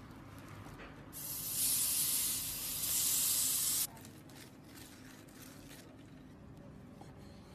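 Hot ribbed contact grill hissing and sizzling with steam as a sandwich toasts on it, loud for about three seconds and then cutting off abruptly. Faint knife taps on a wooden cutting board follow.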